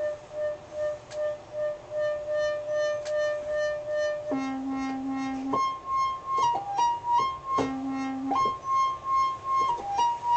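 Realistic MG-1 by Moog analog synthesizer playing with a triangle-wave LFO, its tone pulsing in level about two to three times a second. It holds one note, then from about four seconds in plays a run of changing notes, two pitches sounding together.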